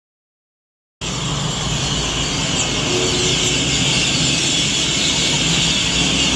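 A large flock of negrito birds gathering to roost, hundreds of birds calling and chattering all at once in a dense, unbroken din, over a low city traffic rumble. It cuts in suddenly about a second in.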